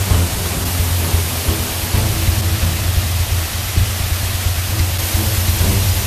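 Steady rushing of a multi-tier waterfall pouring over rock, with background music underneath.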